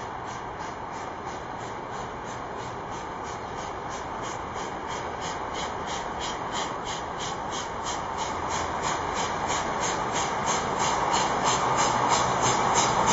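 Soviet L-class 2-10-0 steam locomotive working hard as it approaches, its exhaust chuffing evenly at about three to four beats a second and growing steadily louder.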